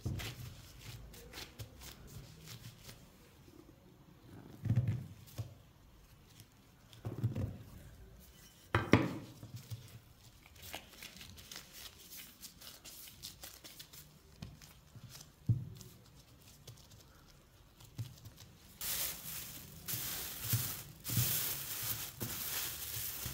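Plastic-gloved hands kneading and dividing bread dough on a silicone baking mat, with faint rustling and a few soft thumps as the dough is pressed and pulled apart. Near the end, plastic cling film crinkles as it is spread over the shaped dough balls.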